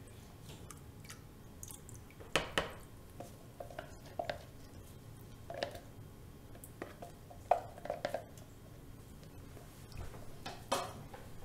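Cold-process soap batter being hand-stirred with a spatula in a plastic mixing bucket after fragrance oil has gone in: scattered clicks and knocks of the utensil against the bucket, a few seconds apart.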